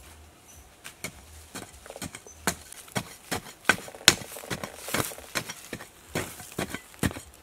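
Metal hoe blade chopping into hard, dry earth: sharp, irregular strikes about two or three a second, growing busier about three seconds in.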